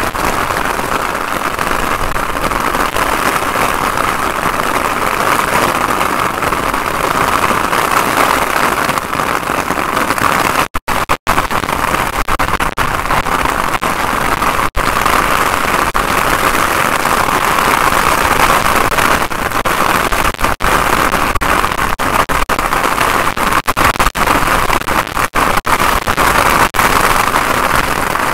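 Heavy rain pouring down in a storm, a loud, steady dense hiss, cutting out for an instant twice close together about halfway through.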